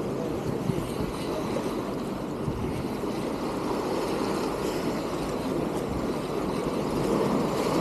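Wind buffeting the microphone over small waves washing and splashing against jetty rocks, a steady rough rush without a break.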